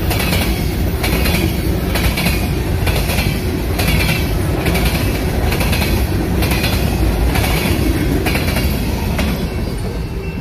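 Union Pacific freight train of covered hopper cars rolling past close by: a steady rumble of wheels on rail, with a clickety-clack that comes about once a second as each set of wheels passes.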